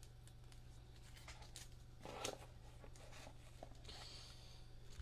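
Faint handling sounds of trading cards: light ticks and a brief scrape about two seconds in as cards are shuffled and slid, over a low steady hum.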